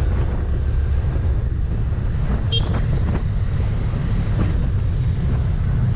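Wind buffeting the microphone on a moving motorcycle, with the engine running underneath as a steady low rumble.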